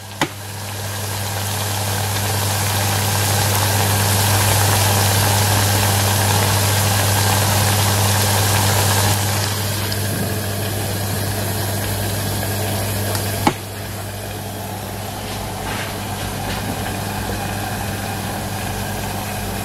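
A steady electric motor hum with a hiss over it, louder for the first nine seconds or so, then a little quieter. A single sharp click about thirteen and a half seconds in.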